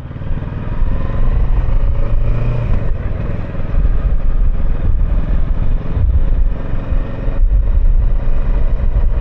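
Kawasaki Versys 650's parallel-twin engine running steadily under way, rising in level over the first second, with heavy low wind rumble on the helmet microphone.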